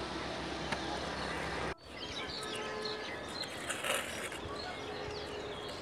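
Outdoor ambience with small birds chirping. The sound drops out abruptly for a moment about two seconds in.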